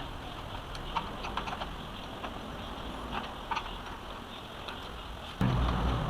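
Scattered light metal clicks and taps as a mortise lock is worked loose and pulled out of a grill door, with a louder low handling rumble starting near the end.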